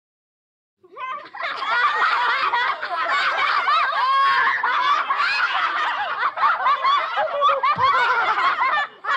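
A group of children laughing together, many voices overlapping, starting about a second in and stopping abruptly just before the end.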